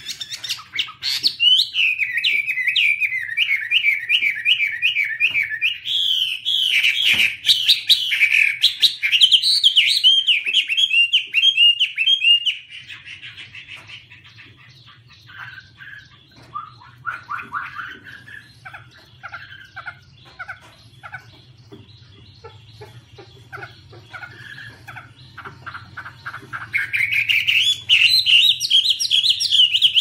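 A Chinese hwamei (Garrulax canorus) singing a long, loud song of rapid, varied whistled phrases. About halfway through it drops to a quieter, lower twittering, then breaks into loud song again near the end.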